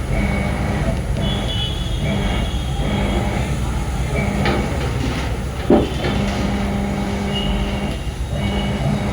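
Motor vehicle running with a steady low rumble and a tone that comes and goes, with one sharp knock a little before six seconds in.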